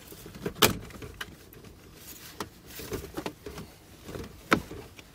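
Plastic dashboard trim panel being pried loose with a trim tool, its retaining clips snapping and the plastic clicking. Two sharp snaps stand out, one about half a second in and a louder-looking one near the end, with lighter clicks between.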